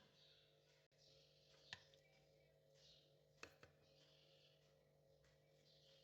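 Near silence: faint background music over a low steady hum, with two light clicks, one about two seconds in and one a second and a half later.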